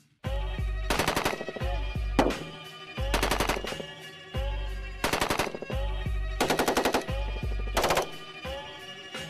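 M27 Infantry Automatic Rifle firing 5.56 mm rounds in short automatic bursts, about five bursts a second or two apart, with background music underneath.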